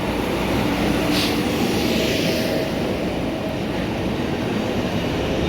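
A train running at a station platform: a steady rumble with faint held tones, and a short hiss about a second in.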